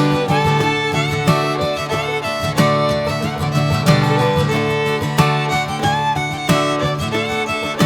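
Instrumental background music with fiddle and guitar in a bluegrass-country style, with a strong accent about every second and a quarter.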